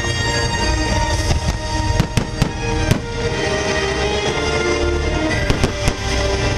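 Aerial firework shells bursting overhead with sharp bangs: a quick cluster about two to three seconds in and another near the end. Under them runs the show's music over loudspeakers, with long held notes.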